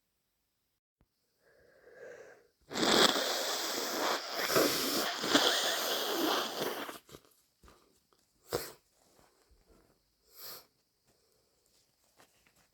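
A person with a head cold blowing a congested, mucus-filled nose into a tissue: one long wet blow lasting about four seconds, followed by two short sniffs.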